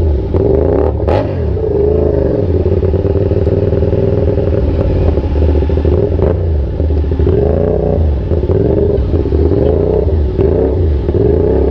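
CFMOTO 450SR's parallel-twin engine running under way, its pitch rising and falling several times as the throttle is opened and rolled off. There is a short sharp click about a second in.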